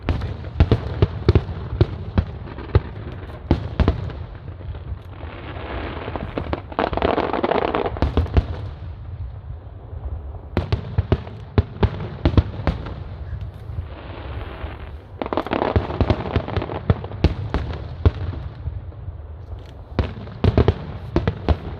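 Aerial fireworks display: a dense, irregular run of sharp bangs and booms, with two longer noisy swells about six and sixteen seconds in.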